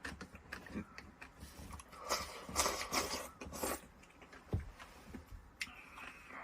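Chewing and crunching of a meal with scattered small clicks, loudest in a few bursts in the middle. A faint steady high tone comes in near the end.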